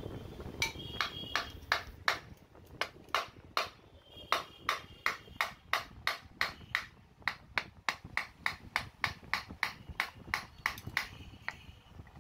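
Metal pipe tapping a ball bearing out of the breaker hammer's part, struck lightly and repeatedly at about three strikes a second, with a short metallic ring on some strikes.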